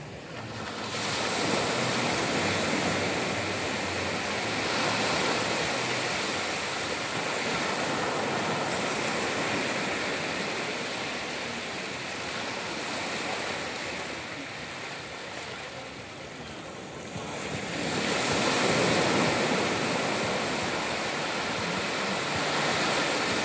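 Small waves breaking and washing up a sandy beach: a steady surf wash that swells and ebbs, rising about a second in and swelling again around eighteen seconds after a lull.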